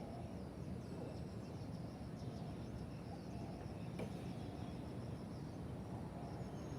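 City dawn ambience: a steady low rumble of distant traffic, with small birds chirping rapidly in the first few seconds.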